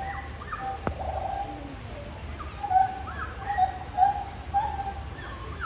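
Birds calling: many short whistled notes on about the same pitch, with quick falling chirps above them. A single sharp click sounds about a second in.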